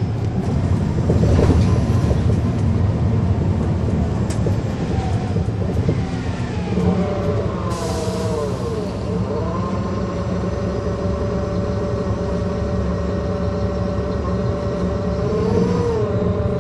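2009 NABI 40-SFW transit bus under way with its Caterpillar C13 diesel engine and ZF automatic transmission, heard on board: a steady low engine rumble with a whine from the drivetrain and axles. The whine dips in pitch and rises again about eight seconds in, and once more near the end.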